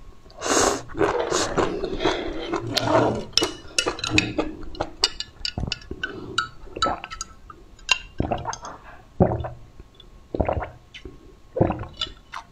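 Close-up mouth sounds of eating: slurping and chewing for the first few seconds, then sipping through a straw, with many short wet clicks, smacks and gulps scattered irregularly.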